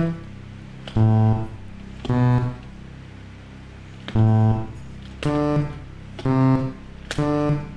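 A seven-note sequence from a game-show music machine: single pitched notes with a deep, bass-like tone, each held about half a second, at changing pitches and with uneven gaps between them.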